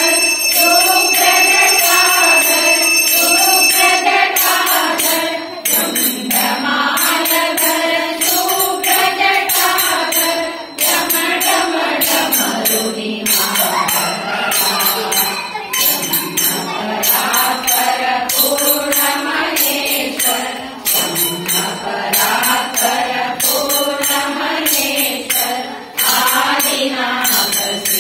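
Evening temple bhajan: voices singing a devotional song in a repeating melody, with metallic hand percussion striking a steady beat.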